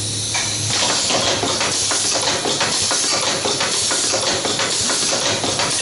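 Automatic nylon YG spring-lock slider and spring assembly machine starting up within the first second and running: a dense, rapid clatter of clicks from its rotary indexing table and air-driven actuators over a steady hiss.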